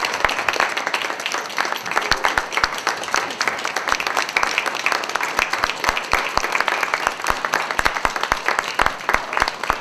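Audience applauding: many hands clapping in a dense, irregular patter that runs on evenly.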